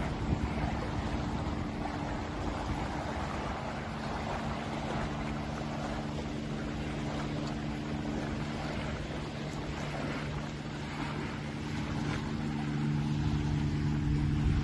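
Small waves lapping at a sandy shore with wind on the microphone, over a steady low engine hum that grows a little louder near the end.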